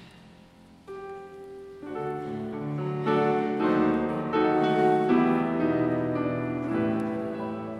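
Grand piano playing a passage of chords that starts softly about a second in, grows louder, then eases off near the end.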